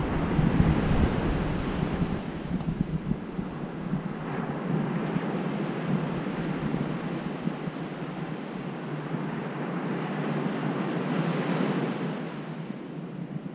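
Ocean surf breaking and washing up on a sandy beach, swelling and easing, with wind buffeting the microphone, heaviest in the first second.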